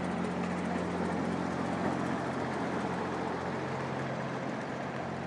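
Steady city street traffic: vehicle engines running with a constant low hum under a general wash of road noise.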